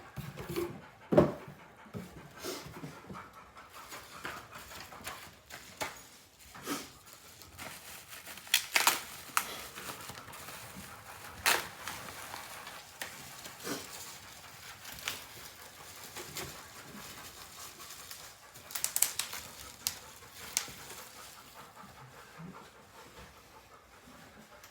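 Cardboard and packaging rustling and crinkling as a shipping box is opened and unpacked, with scattered sharp rips and clicks.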